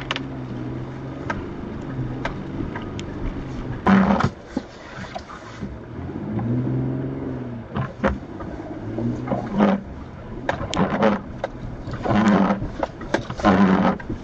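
Off-road 4x4's engine revving up and easing off while crawling over a rough, muddy trail, with several loud knocks and jolts as the truck bounces over bumps.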